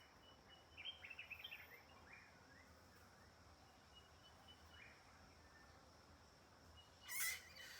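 Small animals calling back and forth: a quick run of high, squeaky chirps about a second in, a few faint single chirps after, and a louder harsh squeal near the end.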